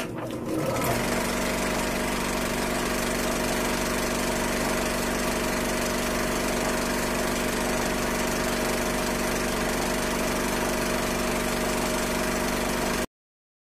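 A steady, unchanging droning hum with a hiss over it, which cuts off suddenly near the end.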